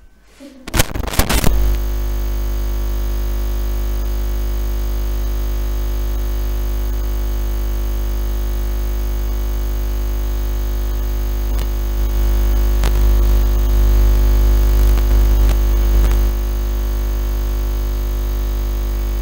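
A few sharp clicks, then a loud, steady electrical buzz over a deep mains-like hum that holds unchanged, swelling slightly about two-thirds of the way through.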